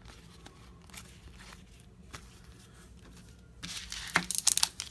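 Faint ticks of trading cards being handled, then, about three and a half seconds in, a foil trading-card pack crinkling loudly as it is gripped and torn open.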